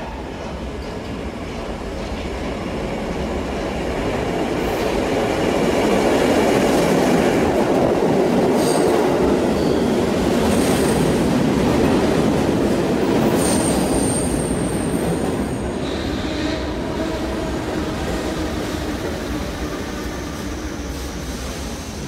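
Subway garbage train hauled by retired R42 cars rumbling through an underground station. It grows louder as it approaches and passes, with brief high wheel squeals and one longer squeal about two-thirds of the way in, then slowly fades as it moves on.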